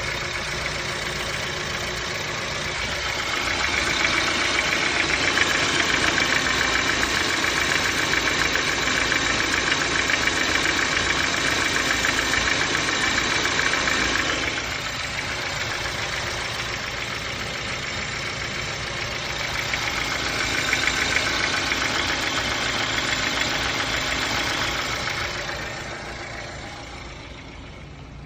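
BMW N43 four-cylinder petrol engine idling with a fast, steady knocking tick, which the owner takes for engine knock. The sound grows louder for two long stretches, then fades near the end.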